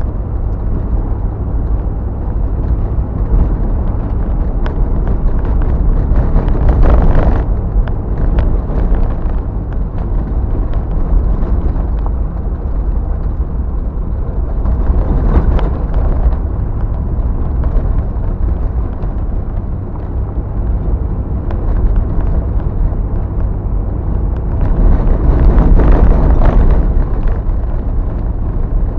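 1977 Jeep Cherokee driving on a gravel road: a steady low rumble of engine and tyres, swelling three times into a louder, hissier rush, about a quarter of the way in, midway and near the end.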